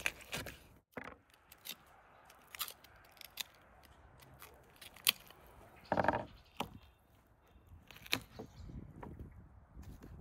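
Knife cutting and scraping raw meat off a beef leg bone on a wooden board: scattered sharp clicks and taps of the blade and bone, with a louder rustling burst about six seconds in.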